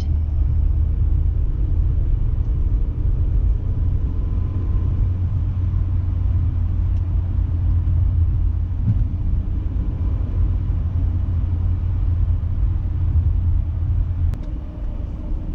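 Steady low rumble of a car driving, with the deepest part of the rumble easing off near the end.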